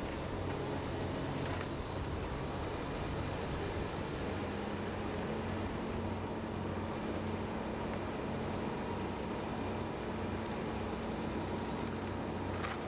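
Fire engines and their pumps running steadily, with the hiss of hose streams on a large fire. A low hum joins about four seconds in, and a few knocks come near the end.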